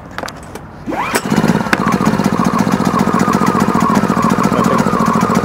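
Portable inverter generator's 149cc four-stroke engine recoil pull-started: about a second in it spins up on a single pull, catches at once and settles into a steady run.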